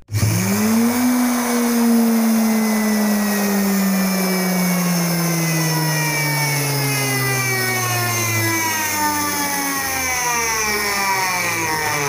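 Washing machine's brushed universal motor, run on the bench off its rewired connector, switching on and spinning up within about a second. It then keeps running with a whine that slowly falls in pitch.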